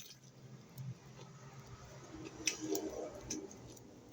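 Faint mouth sounds of chewing: a few soft, wet clicks and smacks.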